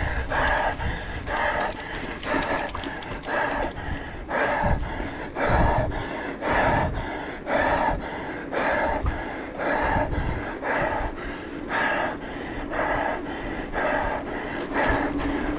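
A mountain-bike racer breathing hard and panting under effort, a little more than one loud breath a second, over a low rumble.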